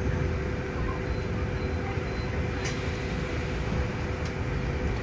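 City bus cabin noise with the bus standing still: a steady low rumble and a constant hum from the bus's running machinery. A light click sounds about halfway through.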